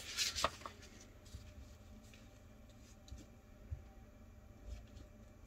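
Faint brushing of a paintbrush spreading white glue on paper, a few soft strokes in the first half-second, then quiet room tone with scattered faint scrapes.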